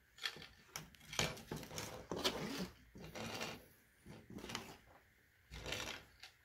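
Thermistor wire being pulled by hand through a 3D printer's braided cable sleeve: irregular rustling and scraping with small clicks and knocks, coming in short bursts.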